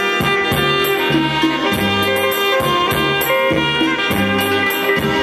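Saxophone playing a melody live, with held notes, over a musical accompaniment with a steady, repeating bass line.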